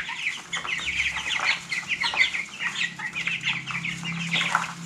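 A brood of young Cornish Cross broiler chicks peeping all together, a constant chatter of many short high chirps overlapping.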